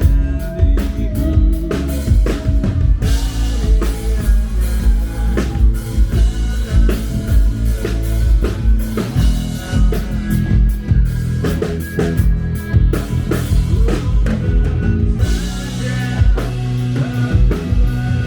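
Rock band playing at full volume, with drum kit and guitar.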